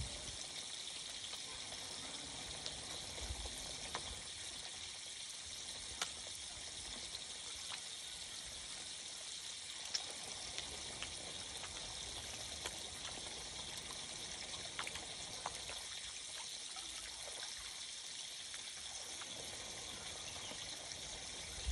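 Steady trickle of running water into a pond, with a few faint small splashes.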